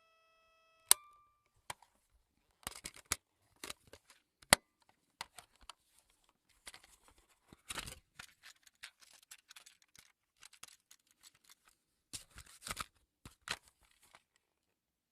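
Fast-forward sound effect, quiet overall: a brief steady beep-like tone ends in a sharp click, then comes a jumble of irregular clicks and short scratchy bursts that stops shortly before the end.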